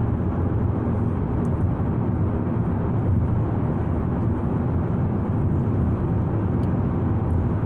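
Steady road and engine rumble heard from inside the cabin of a moving car.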